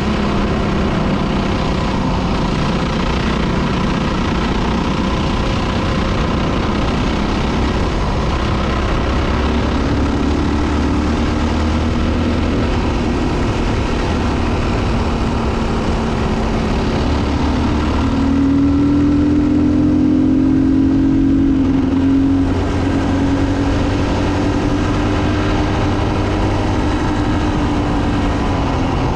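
Dirt bike engine running steadily under way on a gravel track, heard from a camera mounted on the bike. About two-thirds of the way through it revs higher and louder for a few seconds, then settles back, and the pitch drops near the end as it eases off.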